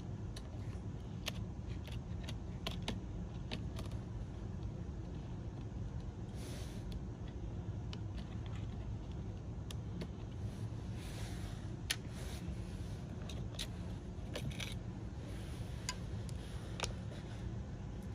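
Scattered small clicks and taps of a plastic spudger and fingertips working the cable connectors on a Lenovo ThinkPad X1 Carbon Gen 9 laptop's system board, over a steady low background hum.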